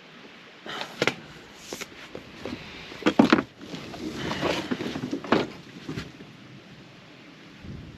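Irregular knocks, bumps and rustles of a small boat being tied up by hand to an old riverside platform: rope and fittings handled, with the hull knocking. The loudest knocks come about three seconds in.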